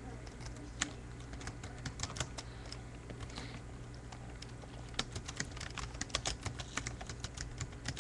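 Typing on a computer keyboard: scattered keystrokes at first, a short pause, then a quick run of clicks from about five seconds in, over a steady low hum.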